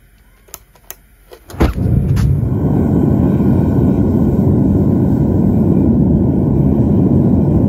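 A long-nosed lighter clicks a few times at the mouth of a hose-fed gas melting furnace, then the burner catches suddenly about a second and a half in and runs with a steady loud rumble, heating copper ground plates to melt.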